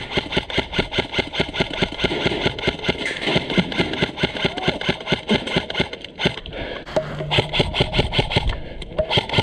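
Airsoft electric rifles (AEGs) firing long full-auto bursts: a rapid, even stream of sharp clicks with a short break a little after six seconds in.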